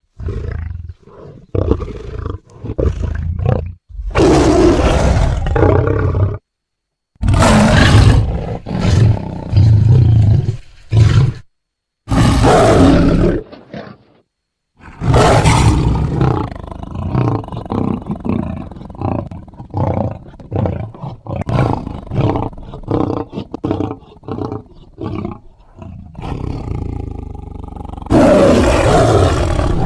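Big-cat roars and growls, a lion-and-tiger creature voice (with smilodon sounds mixed in) for the Red Lion WildZord, played one after another with short silent gaps between some calls. A busier run of shorter snarls and growls fills the second half, and a loud roar comes near the end.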